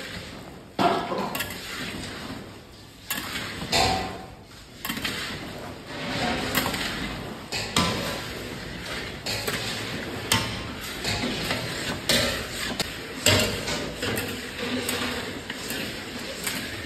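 Metal utensils clattering and knocking against a cooking pan in irregular sharp strikes, over steady background noise that grows from about five seconds in.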